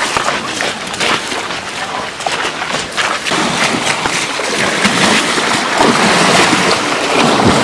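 Elephants wading through a shallow river, water splashing and sloshing around their legs. Sharp splashes at first, then a steady, louder wash of water from about halfway through.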